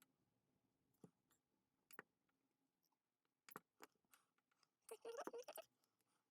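Faint, sharp single clicks every second or so, then a quick run of louder clicks about five seconds in, from spot-welding nickel strip onto 18650 lithium-ion cells.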